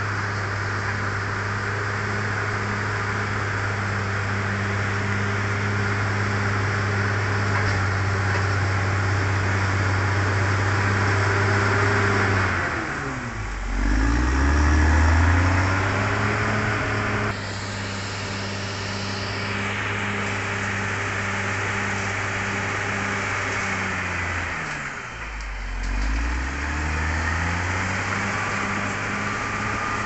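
Caterpillar D6R XL crawler bulldozer's diesel engine running hard as the machine pushes dirt. About halfway through, and again near the end, the engine speed drops sharply and then climbs back up.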